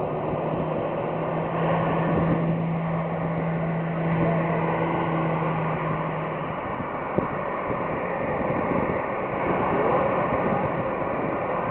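Boeing 737-800's CFM56 jet engines running at taxi thrust as the airliner taxis and turns: a steady rushing engine noise, with a low steady hum under it that fades out about halfway.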